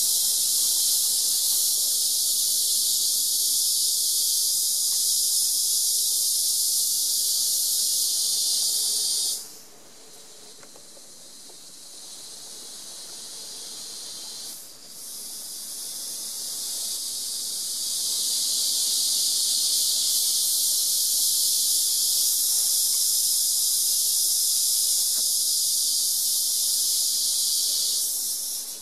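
Loud, steady, high-pitched insect drone. It stops abruptly about a third of the way in, swells back over several seconds, and cuts off again just before the end.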